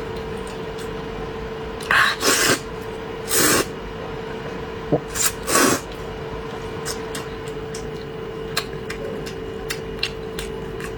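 A person eating braised pork belly up close, with five short, loud slurping sucks in two clusters and faint mouth clicks, over a steady low hum.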